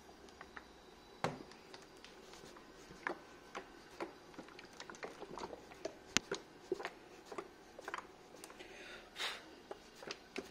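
Irregular light clicks and taps of hands handling the hard plastic of a Formlabs resin cartridge and printer, with a short scraping rustle near the end.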